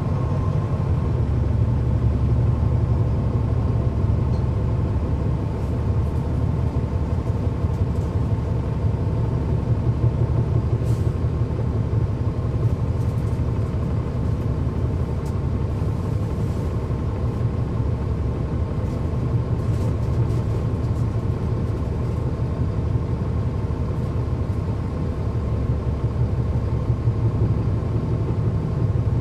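Cummins ISL9 diesel engine of a NABI 40-SFW transit bus heard from inside the bus, running steadily: a constant low rumble with a steady whine above it.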